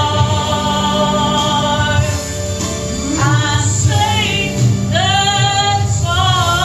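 Gospel music: sustained chords over a pulsing bass line, with a voice singing phrases in the second half.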